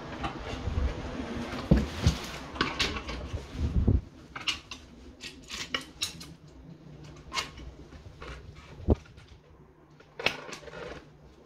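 Small clicks and knocks of an electrician's hands working plastic socket faceplates and wiring into the wall boxes: a run of short sharp ticks, busiest in the middle, with low handling rumble during the first few seconds and a single sharper knock near the end.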